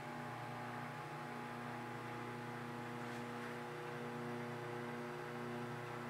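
Microwave oven running while it heats a cup of water: a steady, low electrical hum with several even overtones, unchanging throughout.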